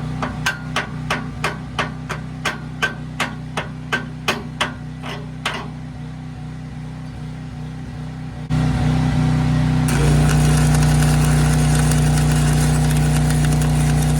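Small engine-drive Hobart welder's engine running steadily under a series of hammer strikes, about three a second, that stop about five seconds in. About eight and a half seconds in the engine steps up, and again about ten seconds in, running faster and louder with a steady hiss to the end.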